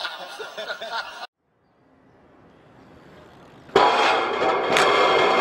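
Crowd voices and laughter that cut off abruptly about a second in. After a short silence and a faint rising hiss, a loud, dense sound with many steady tones starts suddenly near the end.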